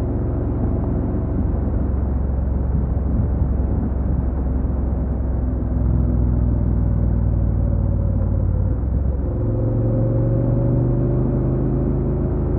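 Honda NC750X's 745 cc parallel-twin engine running as the motorcycle is ridden. Its note changes about nine seconds in and then climbs slowly.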